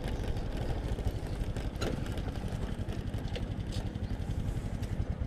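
Small single-cylinder Honda motorcycle engine running at low speed as the bike rolls slowly and pulls up.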